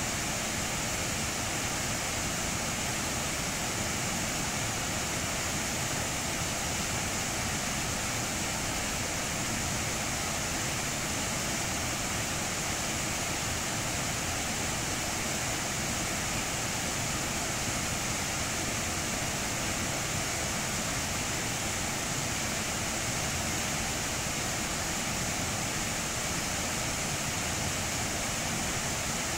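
Water rushing down rocky stream rapids over and around boulders: a steady, unbroken roar.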